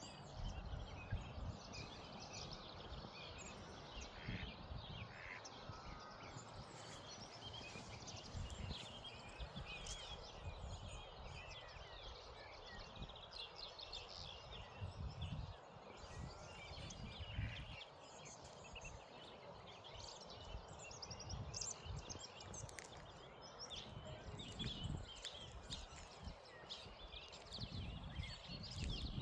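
Morning birdsong: many small birds chirping and twittering at once, over a steady outdoor hiss, with irregular low rumbles of wind on the microphone.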